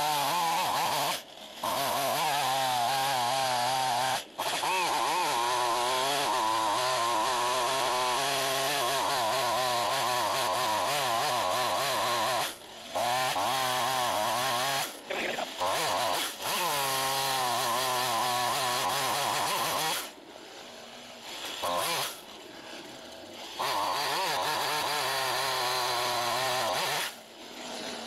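Gasoline chainsaw cutting into the base of a standing tree trunk at full throttle, its pitch wavering under load, with a few short breaks. About twenty seconds in it drops back to idle, then revs and cuts again for a few seconds before dropping off near the end.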